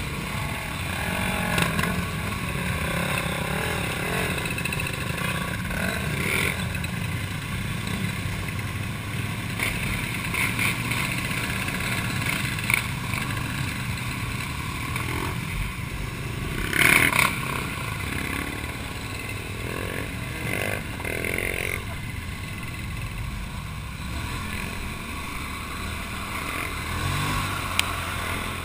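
Quad bike (ATV) engine running steadily while riding over a rough, muddy dirt track, heard from a camera mounted on the quad, with tyre and rattling noise over it. A brief loud rush of noise comes about 17 seconds in.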